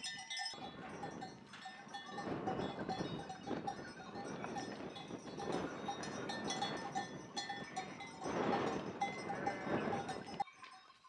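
Bells on a moving sheep flock clinking over and over, over a shuffling of hooves on stony ground; the sound cuts off shortly before the end.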